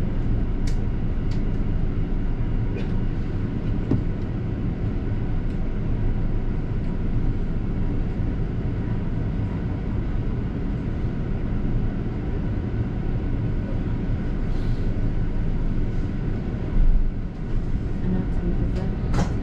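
Inside a double-decker bus under way: a steady low rumble of engine and road noise, with a few light clicks and rattles.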